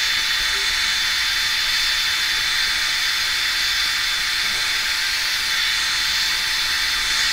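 Philips Thermo Protect hair dryer running steadily on cold air to set a blow-dried quiff: an even rush of air with a thin steady whine.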